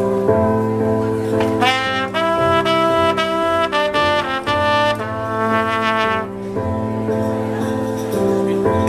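Trumpet playing a melody of held notes from about two seconds in to about six seconds in, over steady accompaniment music that runs on underneath.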